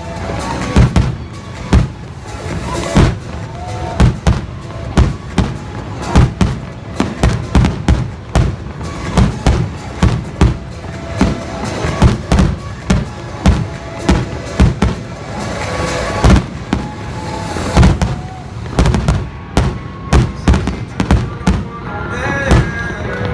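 Aerial firework shells bursting in quick succession, several loud bangs a second, over pop music playing loudly from stadium speakers. The bangs thin out near the end, leaving the music.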